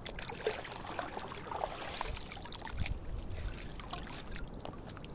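Shallow seawater sloshing and trickling, with scattered small splashes and clicks.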